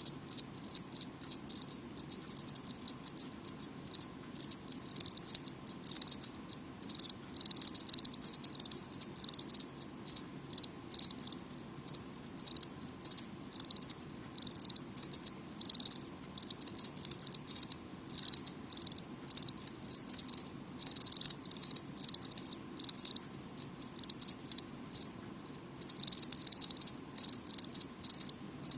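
House cricket (Acheta domesticus) chirping loudly: quick, high-pitched chirps repeated in dense runs with short pauses between them, the calling song of a stridulating male.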